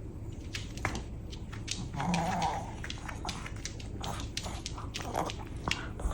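Long-haired Chihuahua making short moaning, talking-like vocal sounds instead of barking, one about two seconds in and a fainter one near five seconds, among scattered small clicks and taps.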